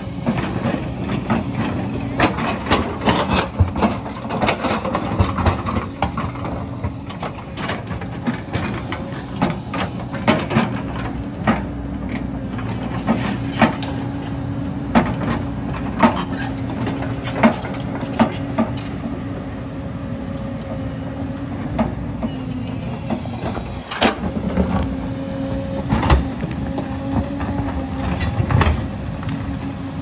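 JCB tracked excavator's diesel engine running steadily under load, with its steel bucket scraping and knocking against rock and soil in frequent sharp clanks.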